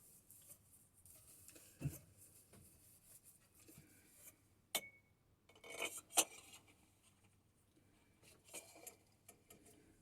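Metal spacer tube being fitted into a motorcycle fork leg: scattered light metal clinks and scrapes, with one sharp clink that rings briefly near the middle and a few knocks a little later.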